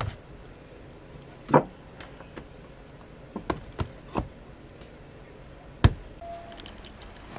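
A handful of sharp knocks and taps, irregularly spaced, the loudest about one and a half seconds in and just before six seconds in.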